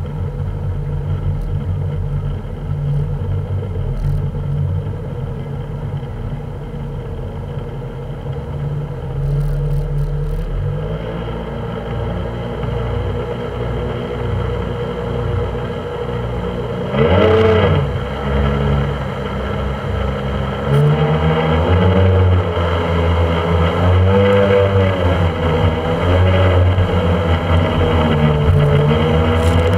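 Speedboat engine running under way with a steady low drone. About seventeen seconds in it revs up sharply and gets louder, then its pitch rises and falls again and again as the throttle changes.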